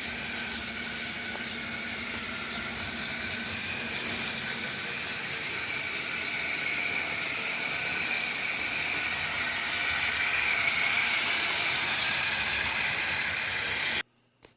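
Motorized LEGO trains running on plastic track: a steady electric motor whine over the rolling rattle of the wheels. It grows a little louder toward the end, then cuts off suddenly.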